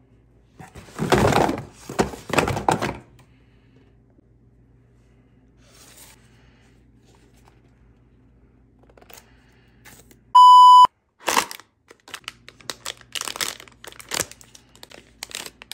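Cardboard blind box being handled and opened, then a foil blind bag crinkling and tearing open, with clicks and taps. Partway through, a short electronic bleep at one steady pitch is the loudest sound.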